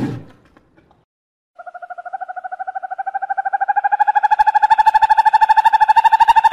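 The tail of an animal's roar fades out in the first moment. Then, about a second and a half in, an animal starts a long, even trill of very rapid pulses at a steady mid pitch, slowly growing louder.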